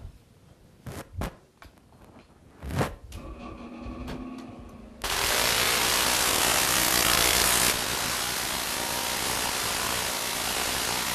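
Million-volt Tesla coil switching on about five seconds in: its sparks make a sudden, loud, steady noise that drops a little about two and a half seconds later and keeps going. Before it starts, a few sharp knocks.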